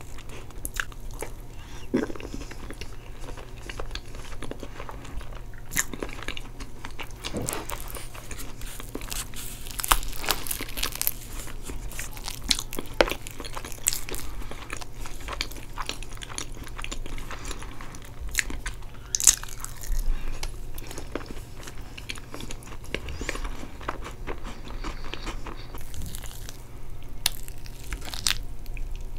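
Close-miked eating sounds: chewing and wet mouth clicks while eating soft chocolate cake with caramel sauce and whipped cream, with short sharp clicks scattered throughout.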